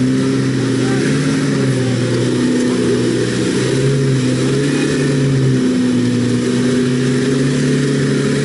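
Mitsubishi L200 pickup's engine pulling under load as the truck crawls up a steep, muddy dirt slope, holding nearly steady revs with small dips.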